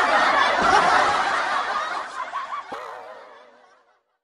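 Several women laughing and chuckling, with a single sharp click about two and a half seconds in; the sound fades out to silence near the end.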